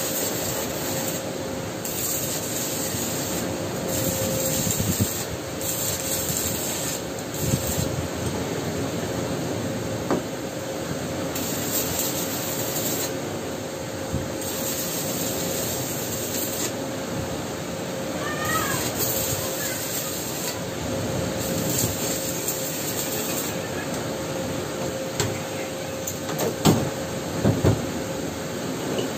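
Stick (arc) welding: the electrode's arc crackling in runs of one to two seconds, broken by short pauses, over a steady hum. A few sharp knocks near the end.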